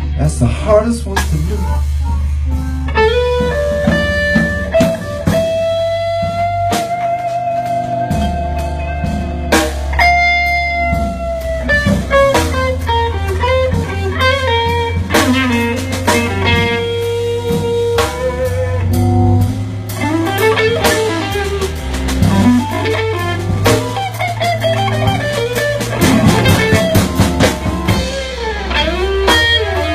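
Live electric blues guitar solo on a thinline Telecaster-style guitar, with long sustained, bent notes in the first half and quicker runs later. A drum kit and a low bass line play behind it.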